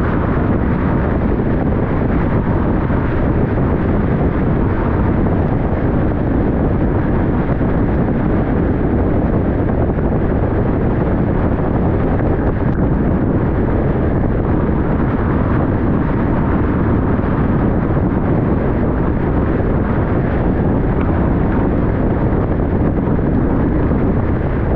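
Steady road and wind noise of a car driving at highway speed, a constant low rumble with no distinct events.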